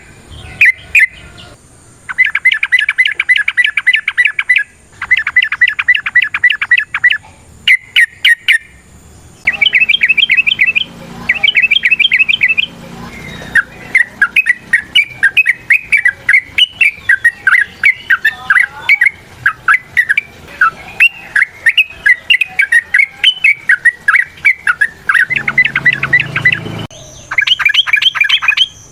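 Yellow-vented bulbul (trucukan) calling in loud bursts of fast, chattering repeated notes. A longer, more varied run of song comes through the middle, and another fast burst comes near the end.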